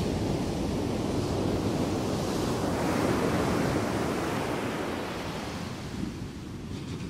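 Rushing sea water, a steady surf-like hiss that swells about three seconds in and then slowly fades.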